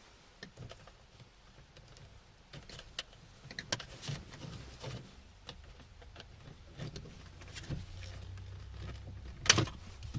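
Scattered small plastic clicks and taps as a flat screwdriver works a wiring connector off a car door's power lock switch, with a sharper click about nine and a half seconds in.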